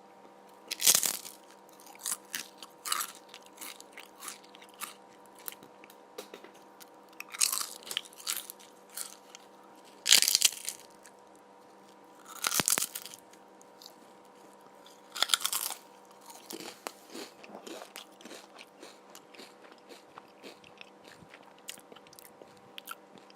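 A person biting and chewing crunchy food: several loud crunching bites a few seconds apart, with smaller chewing crunches between them that grow sparser toward the end.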